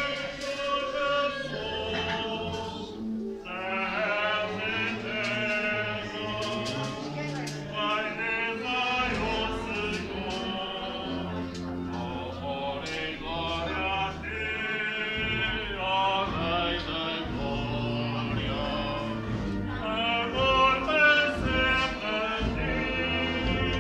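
Music with singing: voices in a choral style over instrumental accompaniment with sustained low notes.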